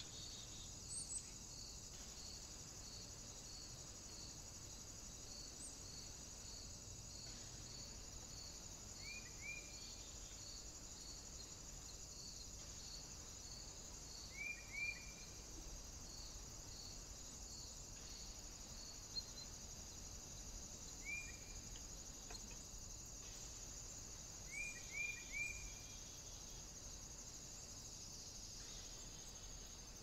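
Outdoor woodland ambience: a steady high insect drone, with a high insect chirp repeating about twice a second for the first two-thirds. Short bird calls come a few times, each two or three quick falling notes.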